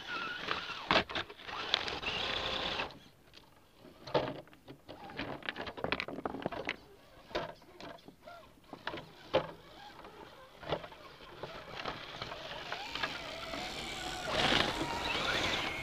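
Small electric motors of RC scale rock crawlers whirring, with scattered knocks and clatter of plastic bodies and tyres on rock as the yellow truck tips onto its side; a wavering motor whine near the end.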